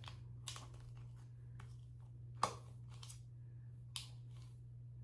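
Fingers scraping the last of a hair cream out of a nearly empty jar: three short scraping clicks, the middle one the loudest, over a steady low hum.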